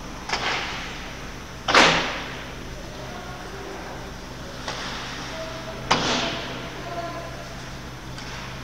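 Two loud, sharp impacts about four seconds apart, each with a short ring-out, and a few fainter knocks between them.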